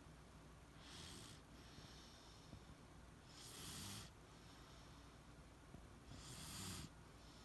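A beagle in deep sleep, breathing with soft, airy snoring breaths: three slow breaths, one about every two and a half to three seconds, each lasting under a second.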